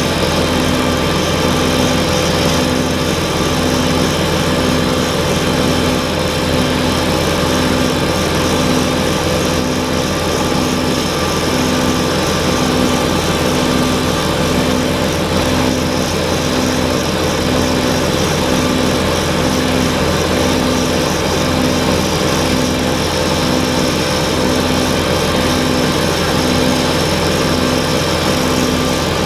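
Kubota BX23S compact tractor's three-cylinder diesel running steadily, driving a front-mounted snowblower, with a regular pulsing in the drone about once a second.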